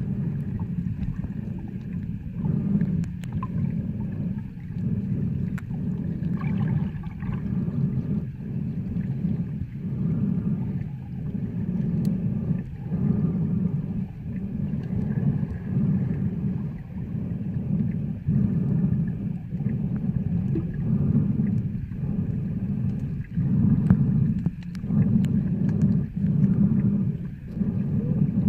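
Muffled underwater rumble of water moving around a camera carried by a swimming snorkeler, swelling and easing every second or two.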